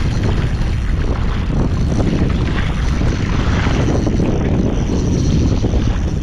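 Strong wind buffeting the camera microphone, a steady, loud low rumble.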